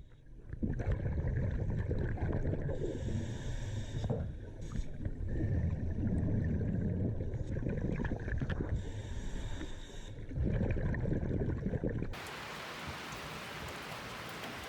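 Water sloshing and splashing in uneven, low surges. About twelve seconds in it cuts to the even hiss of steady rain.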